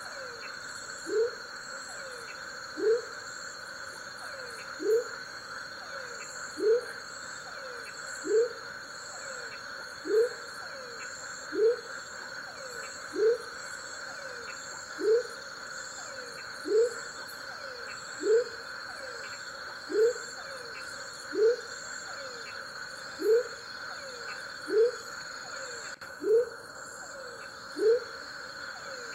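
Male Savage's thin-toed frog (Leptodactylus savagei) giving its advertisement call: a short, low whoop that rises in pitch, repeated about every second and three-quarters, over a steady high-pitched background chorus.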